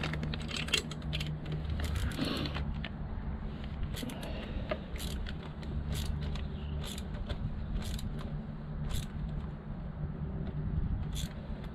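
A hand socket ratchet clicks rapidly as bolts are worked for a couple of seconds, then scattered metallic clicks and taps follow as parts are handled. A steady low background rumble runs underneath.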